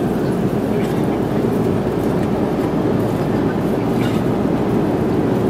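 Steady cabin noise of an airliner in flight: a constant low rumble of the engines and rushing air.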